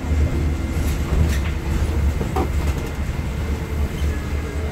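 Cabin noise of a moving NovaBUS LFS city bus: a steady low engine and drivetrain rumble with road noise, and a brief squeak about two and a half seconds in.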